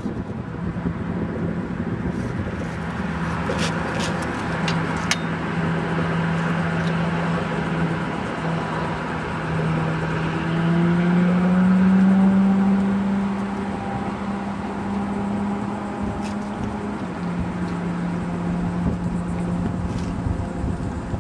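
A motor engine running with a steady low hum that grows louder and higher in pitch about halfway through, then settles back down. A few sharp clicks sound early on.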